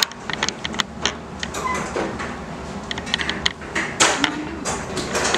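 Irregular clicks and knocks of objects being handled, with faint voices in the background.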